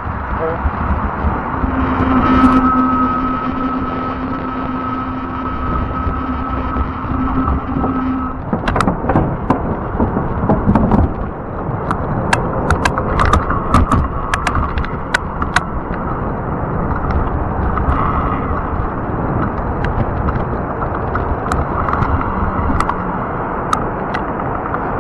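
Riding noise from a fat-tire electric bike: wind buffeting the microphone and rolling noise. A steady whine runs through the first several seconds, then a run of sharp clicks and rattles comes in the middle.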